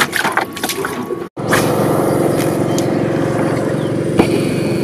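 Water splashing and sloshing as a snakehead thrashes in a water-filled plastic crate. After a brief dropout about a second and a half in, a steady engine-like drone runs to the end.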